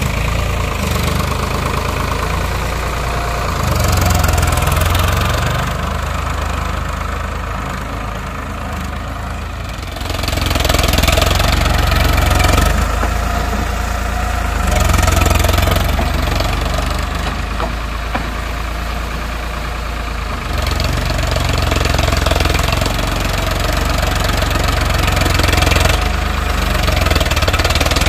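Farmtrac tractor's diesel engine running as its front dozer blade pushes soil, the engine sound swelling and easing every few seconds.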